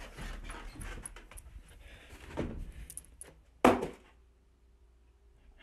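Scattered clicks and rustling, then one loud thump about three and a half seconds in, followed by a faint steady hum.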